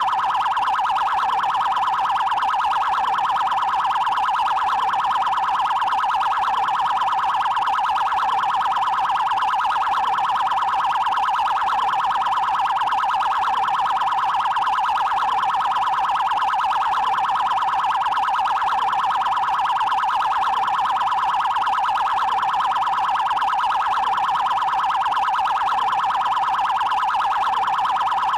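Electronic police siren of Brazil's Federal Highway Police (PRF) sounding its 'trail' priority tone: a very fast, even warble held at one high pitch, with no slow rise and fall, going on without a break.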